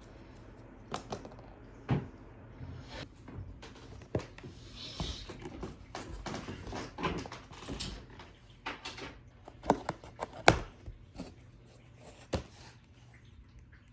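Irregular light knocks and clicks of objects being handled, with about a dozen sharp taps spread out, the loudest about ten and a half seconds in.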